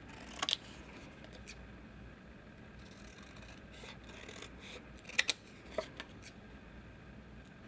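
Scissors snipping through a small printed photo on paper: scattered sharp snips with quiet paper handling between, the loudest a close pair about five seconds in.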